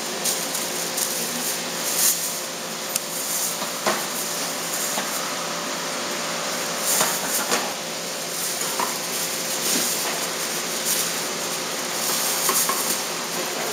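Small scattered clicks and light rustling as fishing tackle is handled: a snap swivel and fishing line being threaded and knotted. Under it, a steady hiss with a faint hum.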